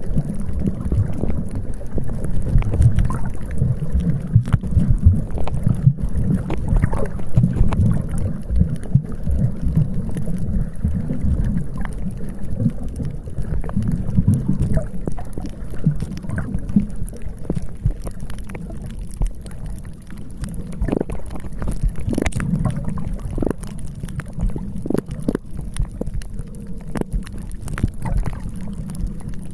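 Wind buffeting the microphone in gusts, a heavy low rumble that swells and drops, over the wash of the sea.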